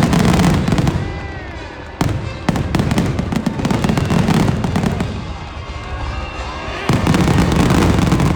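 Aerial fireworks display: a run of booming bursts with crackling, with fresh bursts about 2 seconds in, again half a second later, and again near the end.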